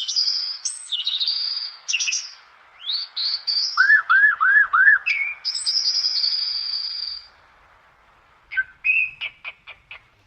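Songbirds singing and calling: a run of high whistled chirps and trills, four quick looping notes about four seconds in, a long held whistle, then a series of short sharp chirps near the end.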